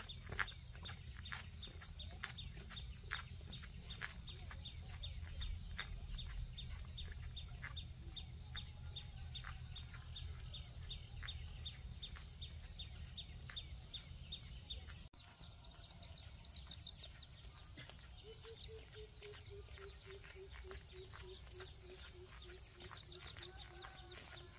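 Outdoor ambience with birds calling. A steady high drone and light, regular clicks fill the first part. After an abrupt cut about two-thirds in come trilled chirps and a run of short repeated call notes falling slightly in pitch.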